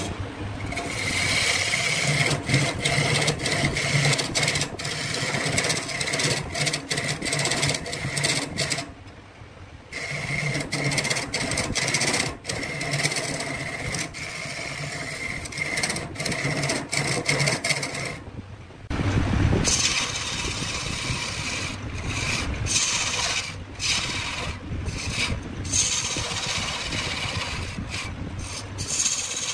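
Tool scraping wood on a running woodturning lathe: a steady rasping hiss over a low motor hum, with many brief breaks and two longer pauses, about a third and two thirds of the way through.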